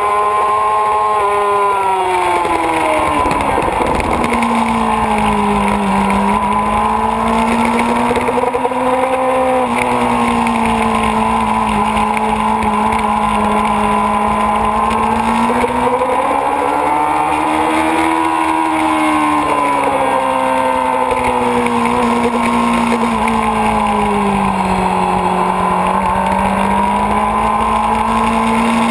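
Kawasaki ZX-6RR inline-four sport-bike engine running hard on track, with wind rush. Its pitch falls sharply about three seconds in, then climbs and sags again with the throttle through the corners.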